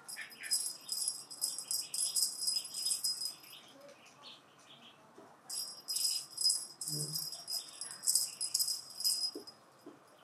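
Bungee cat toy, a stack of colourful balls on an elastic string, rattling in quick shakes as the kitten bats it and it swings. Two long spells of rattling with a lull of about two seconds between them.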